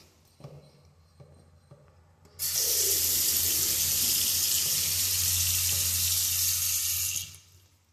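Sink faucet turned on about two and a half seconds in, water running steadily from the spout into the basin and drain, then shut off near the end. A low steady hum sits underneath.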